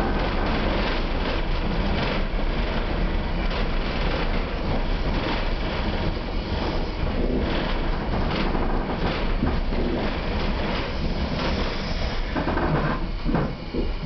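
Railway carriage running along the track, heard from inside: a steady rumble and rattle of wheels and body, with a few clunks near the end.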